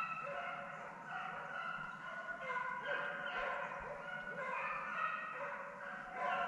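A pack of deer hounds baying together in full cry, several long overlapping voices at once.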